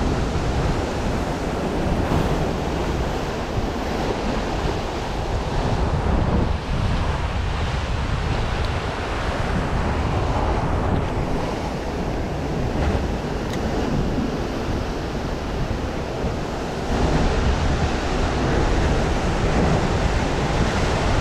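Ocean surf breaking and churning against a rocky shore, a steady loud wash of water, with wind buffeting the microphone. The low rumble swells about three-quarters of the way through as a bigger wave comes in.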